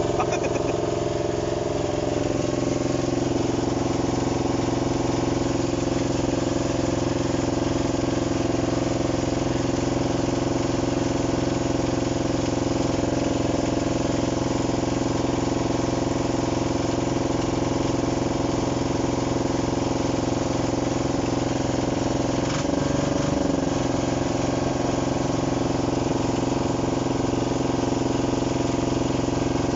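Diesel engine of a large hydraulic excavator running steadily, with a brief change in its tone about three-quarters of the way through.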